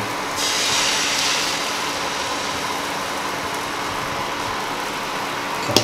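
Beaten egg poured onto a hot flat tawa, sizzling brightest about half a second in as it spreads, then settling into a steady sizzling hiss.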